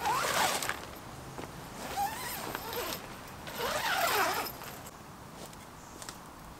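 Zipper on the insect-mesh door of a car awning tent being zipped closed in three pulls, each with a gliding pitch; the zipping stops about four and a half seconds in.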